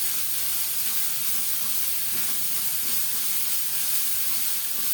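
Chopped garlic and red onions sizzling steadily in hot oil in a pan.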